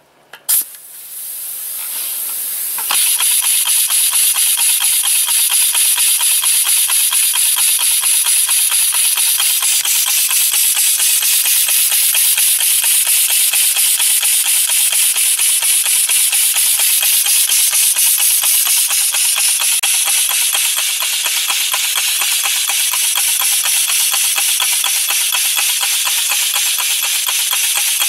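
Air compressor converted into a piston engine, running on compressed air: a loud hiss of air exhausting through its air-chuck valves, pulsing rapidly and evenly. It opens with a click and a softer hiss that jumps up to full running about three seconds in.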